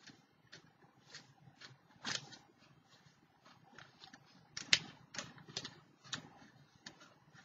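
Irregular light taps and clicks of art tools on a tabletop while a border is being painted on, with one sharper knock a little past the middle.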